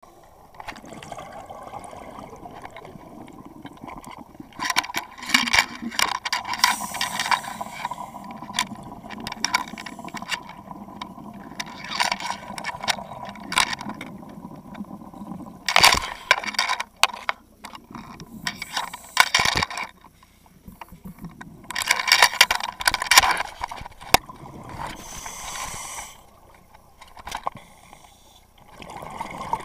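Scuba regulator breathing heard underwater: exhaled air bubbling out in loud gushes every few seconds, with quieter hissing inhalations between them.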